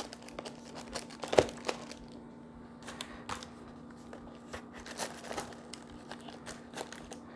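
Items in plastic packaging being handled and set down, crinkling and rustling with scattered light taps and clicks. The sharpest tap comes about a second and a half in, over a faint steady low hum.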